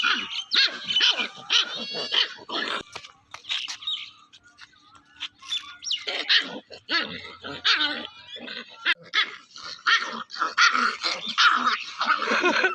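Puppy yipping and barking in quick high-pitched calls, with a quieter gap of a few seconds partway through.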